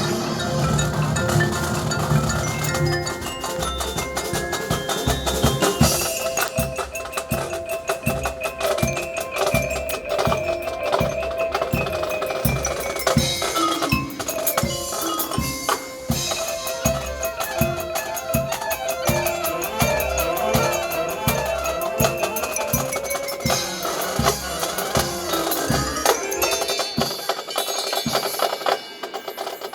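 High school band performing: a steady drum beat under mallet percussion such as marimba and glockenspiel, with sustained melodic notes over the top.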